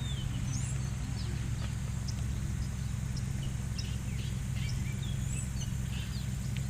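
Several birds giving short, scattered chirps and whistles over a steady low hum.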